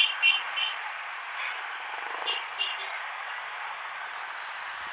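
Steady wind and road noise from riding a scooter through slow traffic, with a few short high chirps at the start and again about two seconds in.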